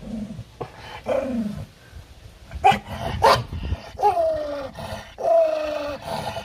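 A dog growling and barking while guarding the food in front of it: two low growls, two short sharp barks about three seconds in, then two longer, drawn-out barks that fall in pitch.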